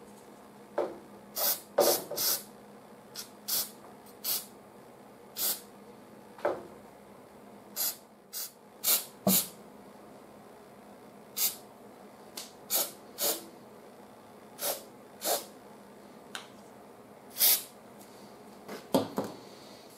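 Aerosol can of rubberized undercoating sprayed in about twenty short bursts, each a quick hiss of a second or less, into the access hole in the back of a fender.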